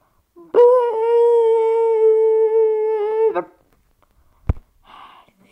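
A voice humming one long steady note for about three seconds, dipping slightly in pitch as it ends, followed by a single sharp knock.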